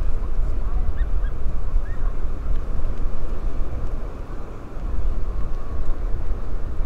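Wind buffeting the microphone with a heavy, uneven rumble that eases briefly about halfway through, over open-sea ambience. A few faint short bird calls sound through it.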